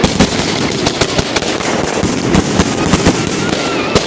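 Fireworks going off in quick succession: a dense string of sharp bangs, several a second, over continuous crackling.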